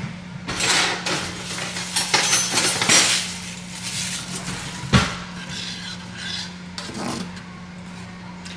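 Utensils rattling as a kitchen drawer is rummaged through, then a single sharp knock about five seconds in. A steady low hum runs underneath.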